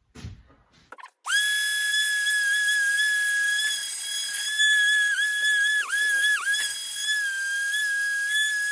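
A steady, high-pitched whistling tone that starts suddenly about a second in and holds one pitch, with three brief dips in pitch in the middle.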